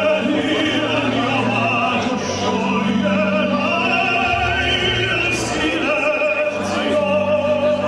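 Orchestral music with operatic singing, long held notes over a steady accompaniment.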